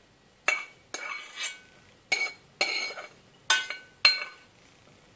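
Metal spoon scraping and knocking against the inside of a saucepan as syrupy candied orange peel cubes are scooped out. About seven sharp clinks come at irregular intervals, a few of them ringing briefly.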